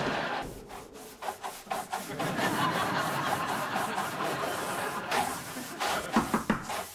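Studio audience laughing after a punchline, a dense, steady wash of laughter that thins out near the end.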